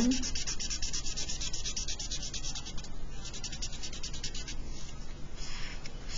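Felt-tip marker scratching across paper in quick, rhythmic back-and-forth strokes as a box is shaded in, the strokes slowing into a few longer ones about four and a half seconds in.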